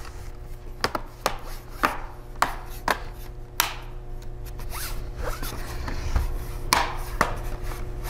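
Plastic bottom case of an HP 14 laptop being pressed back on by hand, its retaining clips snapping into place in a string of sharp, irregular clicks, with plastic rubbing between them.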